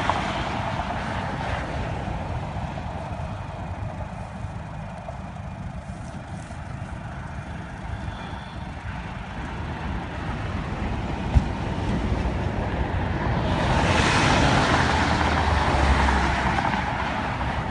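Tow truck running steadily while its winch slowly hauls a stuck pickup up on a taut cable. A single sharp click comes about eleven seconds in, and the sound swells into a louder rush a couple of seconds later.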